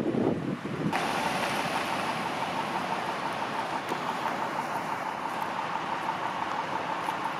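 About a second of wind buffeting the microphone, then an abrupt change to a steady hiss and hum of idling emergency vehicles, with a faint steady high whine over it.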